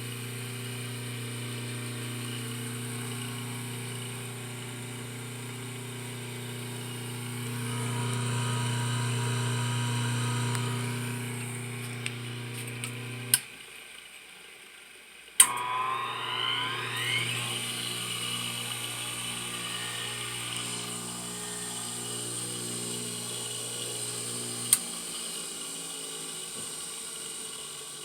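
Bench lathe's two-speed centrifugal-start AC induction motor humming steadily at speed, then switched off with a click about 13 seconds in. About two seconds later it is switched back on with a sharp click and winds up with a rising whine toward 3450 rpm, the start winding cutting out early so the run winding carries it the rest of the way. It runs on and is switched off with a click near the end, leaving it coasting.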